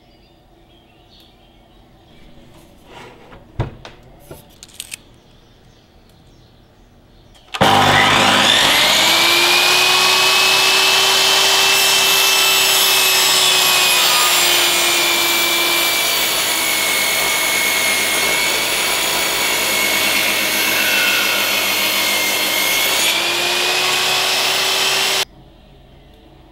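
Bosch GTM 12 JL combination saw, used as a table saw, starting up with a whine that climbs in pitch, then running steadily while cutting a softwood board. Its pitch sags slightly in the middle and recovers, and the sound cuts off suddenly near the end. A few light knocks come before it starts.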